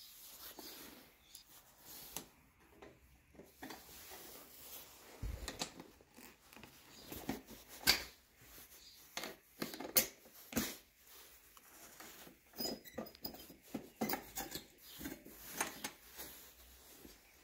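Irregular metallic clicks, taps and scraping of a hook tool and pliers against the dB-killer baffle inside a Beta RR 125 LC's exhaust silencer as it is wiggled loose, with a dull bump about five seconds in.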